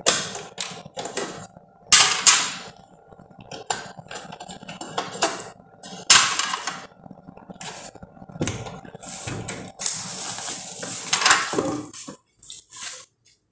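Removable non-stick plates of a Kenwood 3-in-1 sandwich maker being unclipped, lifted out and handled: a run of clicks and clattering knocks of metal and plastic, with a longer scraping rustle shortly before the end.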